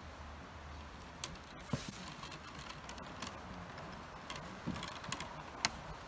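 Soaked willow rods clicking and rustling against each other as a rod is woven in and out of the uprights, with about six irregular sharp ticks over a steady low hiss.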